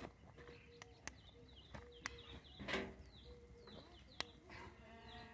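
Faint knocks of wooden sticks as they are set upright around a barbacoa pit, with small birds chirping. A brief faint call sounds about halfway through.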